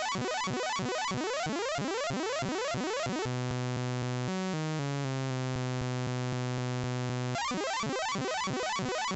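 Harsh computer-generated bytebeat audio from the Profect.exe GDI malware: rapid repeating pitch sweeps, then about three seconds in a steady buzzy tone that steps up and down in pitch before holding, switching back to the sweeps a little past seven seconds.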